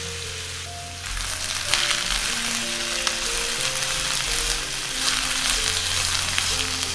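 Matchstick potatoes and sliced onion sizzling in hot oil in a frying pan, starting about a second in, while a slotted spatula stirs them with a few light clicks against the pan. Background music plays underneath.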